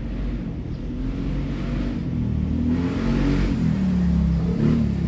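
A motor vehicle's engine running close by. It grows louder about two and a half seconds in, and its pitch falls as it passes.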